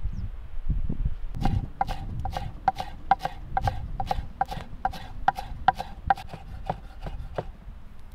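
Kitchen knife chopping fresh cilantro on a wooden cutting board: quick, even strikes, about four a second, starting about a second and a half in and stopping near the end.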